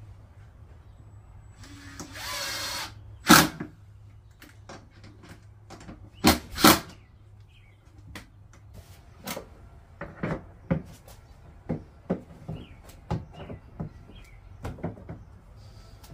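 A power drill whirs briefly for about a second while driving a screw into the plastic toy's parts. Then come loud knocks of hard plastic parts being handled and fitted, a pair of them close together, followed by a string of lighter knocks and taps.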